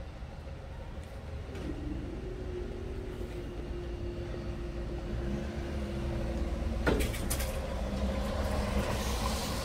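Level crossing barrier machinery raising the booms: a motor hum that rises briefly, then holds steady for about five seconds and stops with a sharp clunk as the barriers reach the top. After it comes a lower, steady hum and road-vehicle noise.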